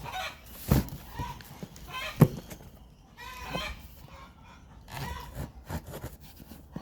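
Chickens clucking and calling over and over, with two sharp knocks, about one and two seconds in.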